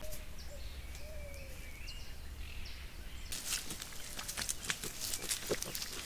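Wild boar and their striped piglets foraging on the forest floor: a dense run of crackling and rustling in dry leaves and twigs under their feet and snouts, starting about halfway through. Before that there is only a low outdoor rumble with a few faint wavering calls.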